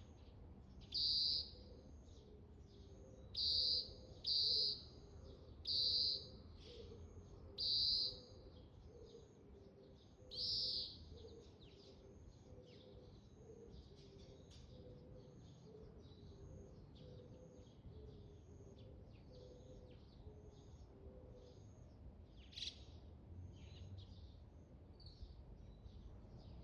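Oriental greenfinch calling: six loud, drawn-out notes in the first eleven seconds and a sharp single note near the end, over fainter short notes repeating about twice a second throughout.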